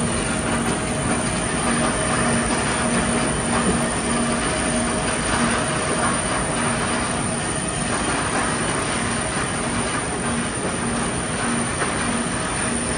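Stacker-reclaimer and belt conveyor machinery running steadily: a continuous mechanical rumble with a steady whine and a low tone that pulses a little faster than once a second.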